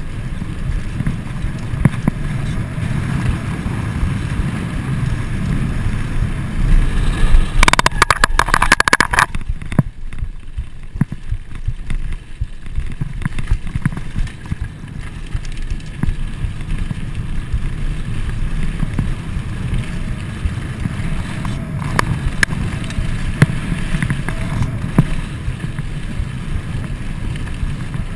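Trek Fuel EX full-suspension mountain bike rolling fast over a dirt trail: tyres on dirt, frame and drivetrain rattling, and wind buffeting the GoPro Hero's microphone. About eight seconds in comes a burst of loud clatter lasting about a second and a half.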